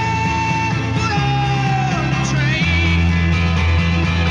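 Background rock music with singing over a steady bass line.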